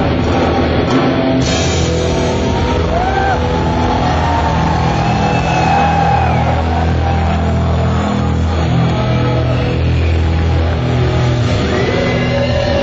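Heavy rock band playing live: an electric guitar lead with pitch bends over bass and a drum kit.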